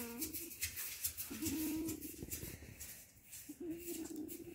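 Sleeping 13-day-old Weimaraner puppies whimpering: short wavering whines, one about a second in and a longer one near the end, over faint rustling and clicks.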